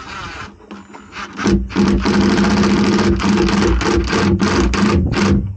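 Cordless drill-driver driving a small screw into a boat's fiberglass panel to fix a plastic mounting plate. The motor runs lightly at first, then from about a second and a half in it runs hard in uneven pulses as the trigger is worked, and it stops just before the end.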